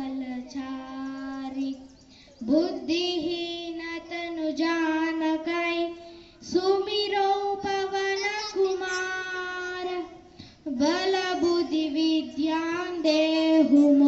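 A child singing a devotional prayer song into a microphone, in long held phrases with short breaks between them.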